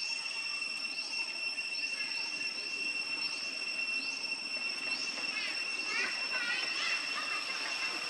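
Forest ambience with a steady, high insect drone and a short rising chirp repeating a little more than once a second. About five and a half seconds in, a brief run of high squeaky calls rises over it.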